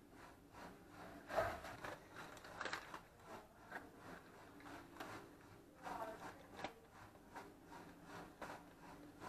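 Aluminium foil crinkling and rustling as it is peeled back from a roast in a roasting tray, in faint, irregular crinkles. A soft bump about a second and a half in.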